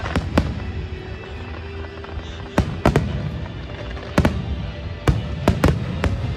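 Aerial firework shells bursting in a large display: about ten sharp bangs in irregular clusters, two right at the start, then a lull of about two seconds, then a quicker run of bangs. Music plays underneath.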